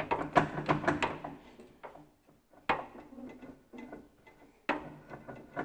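Ferguson TE20's gearbox main shaft splines clicking and rubbing against the clutch plate as the drivetrain is rocked to line the two halves up. There is a quick run of metallic clicks in the first second, then single knocks near the middle and near the end. The splines are not yet lined up.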